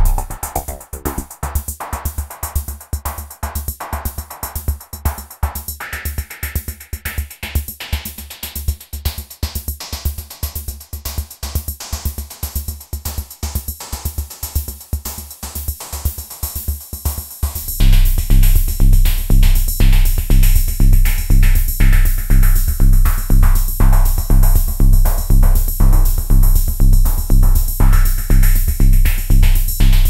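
Mode Machines ADX-1 analog drum machine playing a looped electronic beat over a steady hi-hat pattern, its voices reshaped live by turning the knobs. The bass drum drops out about half a second in and comes back heavy a little past halfway, and the beat gets much louder there.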